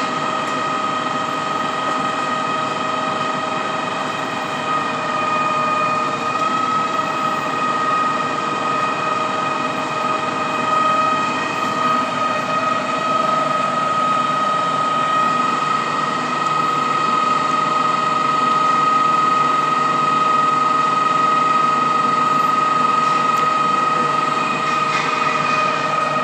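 Truck-mounted concrete boom pump running as its boom is hydraulically folded: the engine and hydraulic pump give a steady high whine over a constant mechanical hum.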